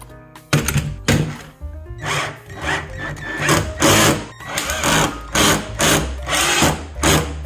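A power screwdriver driving small screws through a metal hinge into a plastic crate in short, irregular bursts of the trigger, over background music.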